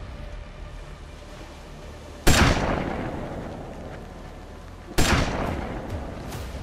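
Two gunshots, about two and a half seconds apart, each a sudden loud crack followed by a long echoing tail.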